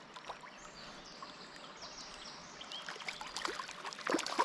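River water running steadily, with a cluster of splashes and small knocks about three to four seconds in.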